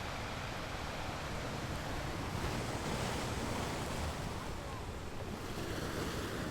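Sea waves washing in, a steady surf with wind rumbling on the microphone; the surf swells slightly about two to three seconds in.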